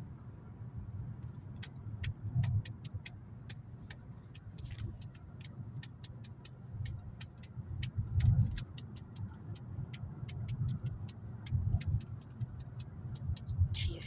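Inside a moving car: steady low engine and road rumble, with a rapid, even ticking of about three ticks a second from the turn indicator.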